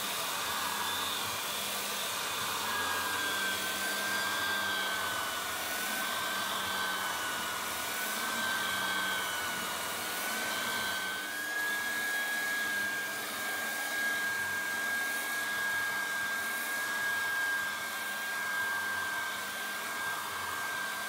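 Floor edger sanding timber boards with an 80-grit Red Heat ceramic-grain disc: a steady motor whine over the rasp of the abrasive on the wood. The whine wavers slightly in pitch at first, then holds steady. The disc is cutting cleanly, the ceramic grain taking the timber away well.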